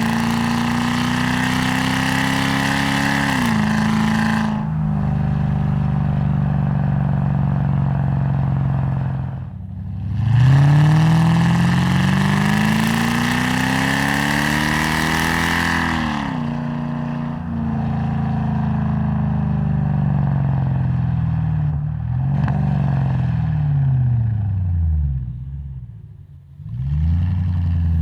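Lexus GS430's 4.3-litre V8 running through a custom exhaust, its note climbing slowly and falling back several times. The loudest climb starts sharply about ten seconds in, and near the end the note sweeps down and dips briefly before picking up again.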